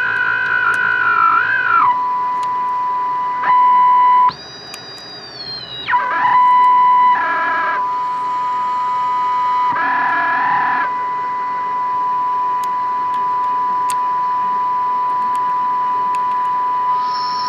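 A mid-1960s General Electric table radio's speaker sounding a steady test tone from a signal generator fed into its AM section while its IF transformer cores are aligned. Higher squeals slide in pitch and cut in and out over it as the core is turned: one falls away about two seconds in, a louder high one sounds from about four to six seconds in, and shorter ones follow. The repairer calls this squealing weird behaviour.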